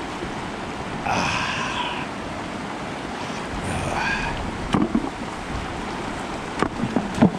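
Shallow river rushing steadily over stones, with splashes and knocks as rocks are lifted and dropped into the water: a handful about halfway through and a cluster near the end, the loudest of them last. Two brief shouted calls are heard, one about a second in and another a few seconds later.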